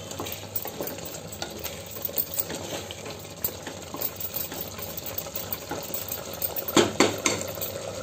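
Spatula stirring and scraping thick mutton gravy simmering in an open pressure-cooker pot, with small clicks and bubbling as the water cooks off. Near the end there are three louder knocks in quick succession.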